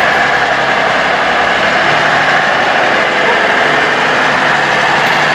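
Massey Ferguson tractor's diesel engine running steadily under load while towing a heavy lorry on a tow bar.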